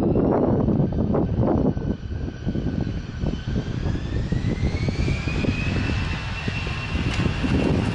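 Jet airliner engines running: a dense rumble, with a whine that rises in pitch from about two seconds in and then holds steady.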